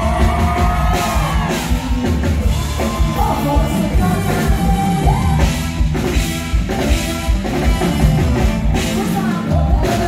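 A live band playing with a woman singing into a microphone, over a steady drum beat and keyboard, loud through the stage PA.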